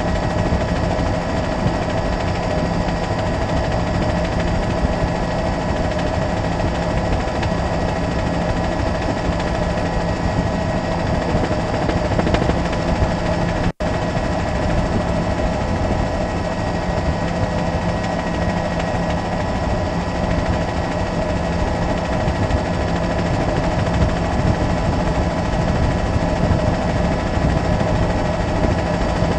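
Steady helicopter engine and rotor noise, with several fixed tones in it. It cuts out for an instant about halfway through.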